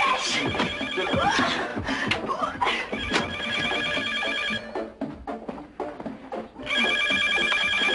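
Telephone ringing with a trilling ring about a second and a half long, heard twice: about three seconds in and again near the end.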